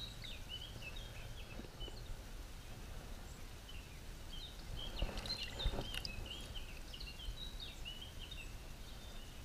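Small birds chirping and singing in quick runs of short high notes, over the low steady rush of a flowing river. A few faint knocks sound about halfway through.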